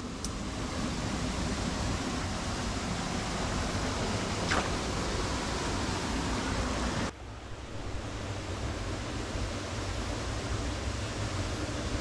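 Mountain stream water running steadily over rocks as a continuous hiss. About seven seconds in it suddenly turns quieter and duller.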